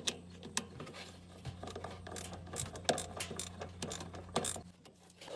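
Irregular small clicks and taps of a hand tool on metal as the 1/4-inch screw holding down a washing machine agitator is worked out, over a steady low hum.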